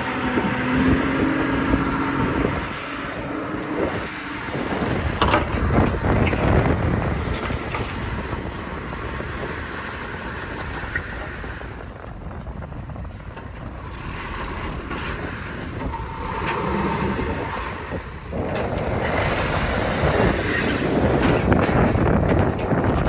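Heavy diesel engines of earthmoving machinery working, the sound swelling and fading with the load, with a steady engine drone in the first three seconds.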